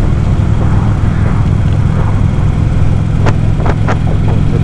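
Harley-Davidson Ultra Classic Limited's V-twin engine running at a steady cruise with wind rush, picked up by a helmet-mounted microphone. A few short, sharp knocks come near the end.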